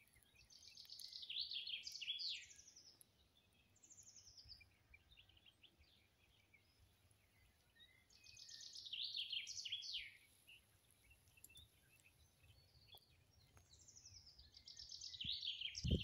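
A songbird singing phrases of fast, high trilled notes about two seconds long, three times with pauses of several seconds between, plus a short snatch in between.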